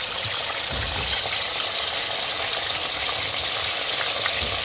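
Steamed chicken frying in hot oil in a karahi, a steady sizzle.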